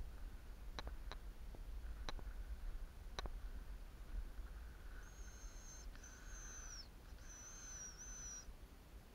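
A few sharp high ticks, then a thin, very high hazel-grouse-style whistle drawn out in three notes of about a second each, the last one wavering.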